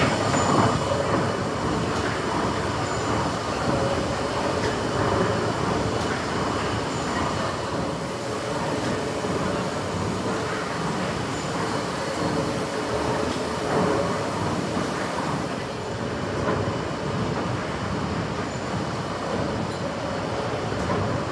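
The Kempton Great Engine, a giant triple-expansion steam pumping engine, running. It makes a steady mechanical noise from its moving rods and flywheel, with a faint beat that recurs every few seconds.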